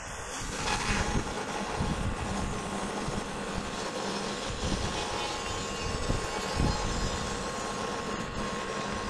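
Norwood Lumberlite ML26 portable bandsaw mill running, its band blade cutting lengthwise through an ash log; the steady machine noise grows louder about a second in and then holds.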